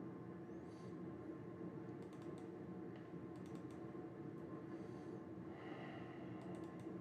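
Short runs of computer keyboard key clicks, in small groups about two, three and a half and near seven seconds in, over a steady low hum.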